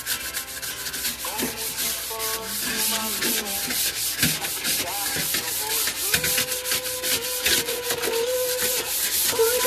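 Refrigerator interior being scrubbed by hand: quick rubbing strokes, many per second, with drawn-out squeaks, most noticeably in the second half.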